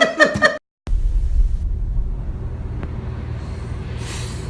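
A short burst of laughing voices cuts off, and after a brief gap a low, steady rumble takes over.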